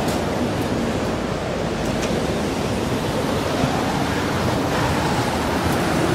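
Steady rush of wind and surf in rough weather, an even noise without breaks.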